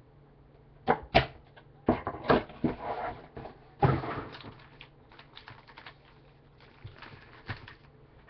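Sealed trading-card packs handled and knocked on a granite countertop: a few sharp taps and knocks over the first four seconds with rustling of the pack wrappers between them, then lighter ticks.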